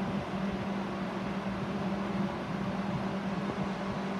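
Steady mechanical hum of running aquarium equipment: a low even tone over constant hiss.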